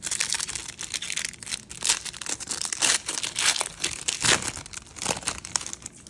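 Foil trading-card pack wrapper being torn open and crumpled by hand: a dense, irregular run of sharp crinkles and crackles.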